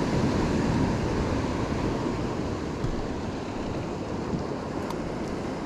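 Steady wind noise on the microphone, mixed with the wash of the sea against the small boat.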